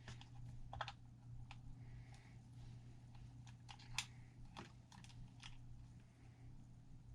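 Faint, scattered small clicks and taps of plastic wire connectors and leads being handled and plugged in on an RC truck's electronics, over a steady low hum.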